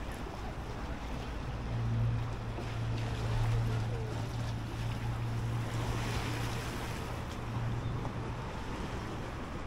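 Wind on the microphone and choppy lake water lapping, with a low steady hum that comes up about two seconds in and fades near the end.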